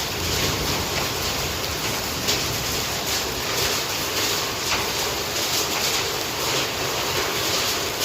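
Heavy rain with hail falling: a steady hiss of downpour with many scattered sharp hits.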